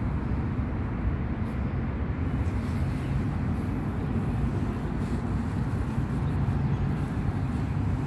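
Steady low rumble of distant city traffic.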